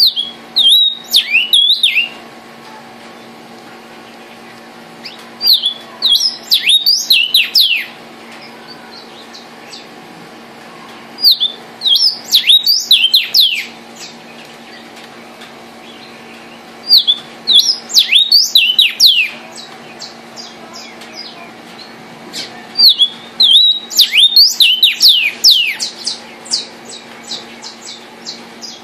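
Vermilion cardinal (cardenal guajiro) singing: five loud phrases of clear down-slurred whistles, one every five or six seconds, then a run of short quick ticks near the end.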